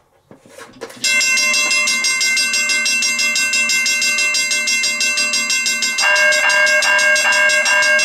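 A few clicks as the power leads are connected, then railroad crossing bells start ringing about a second in, one with rapid steady strikes. About six seconds in a second bell joins with slower, pulsed rings about two and a half times a second. The two bells are a cast-iron Griswold mechanical bell and a GE electronic crossing bell ringing together.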